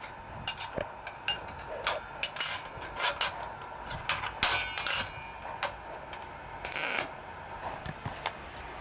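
Steel plates and a MIG welding torch being handled on a steel welding table: a scattered series of short metallic clanks and clicks as the plates are set up for tack welding.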